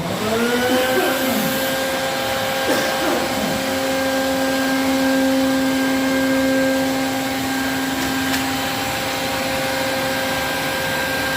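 An electric motor starts, its whine rising in pitch over the first second, then runs steadily with a hum over a rushing noise, like a vacuum running.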